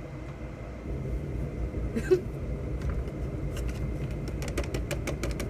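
All-purpose flour being shaken out of its bag into a mixing bowl: a quick run of light taps, several a second, from a little past halfway, after a single knock about two seconds in. A steady low rumble runs underneath.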